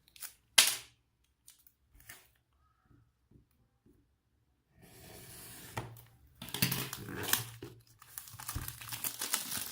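Phone box packaging being torn open and crinkled: a couple of sharp clicks at first, a pause, then a soft rustle and dense crackling from about halfway through.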